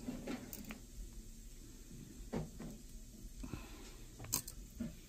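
Small clicks and scrapes of pliers and fingers working plastic off a tiny gold-plated connector pin. There are a handful of short, faint ticks, and the sharpest comes about four seconds in.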